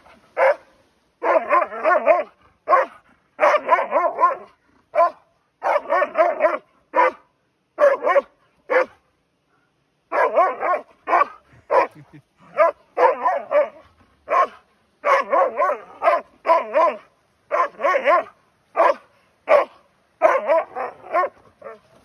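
Dogs barking during rough play. The barks come in quick runs of several at a time, with a pause of about a second near the middle.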